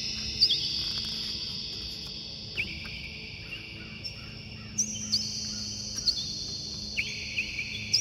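Nature ambience: several steady high-pitched insect trills overlapping, with short chirps scattered through.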